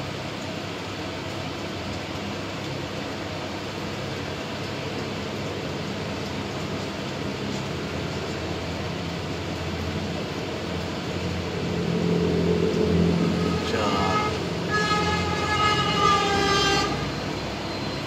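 Steady background noise, with a vehicle rumbling past from about two-thirds of the way in and a horn sounding as one held tone for about two seconds near the end.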